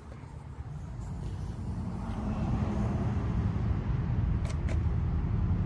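A motor vehicle's engine rumbling low, growing gradually louder over the first few seconds and then holding steady, with two faint clicks near the end.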